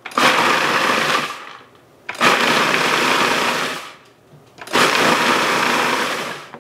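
Electric food processor pulsed three times, each run lasting about one and a half to two seconds with short pauses between, its blade chopping vanilla wafer cookies into crumbs.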